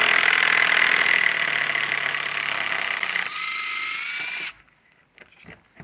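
Makita DHP481Z cordless combi drill running in reverse under heavy load, backing a 3-inch leg bolt out of a wooden post. About three seconds in, the load suddenly falls away and the motor whines up in pitch, spinning free as the bolt's head shears off. The drill stops about a second later.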